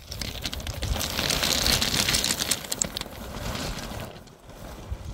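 Close rustling of cloth with many small clicks and knocks of stones being handled near the microphone. It is loudest in the first three seconds, then quieter.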